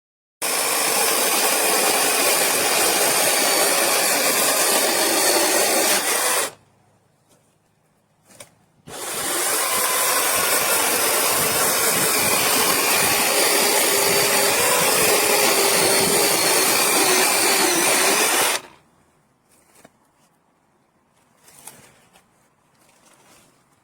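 Brushless cordless chainsaw with a 30 cm bar running at full speed in two long runs, about six and ten seconds, with a short stop between, then switched off.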